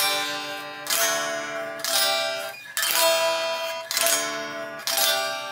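Fesley FST-400M Strat-style electric guitar played unplugged: about six chords strummed roughly a second apart, each left to ring.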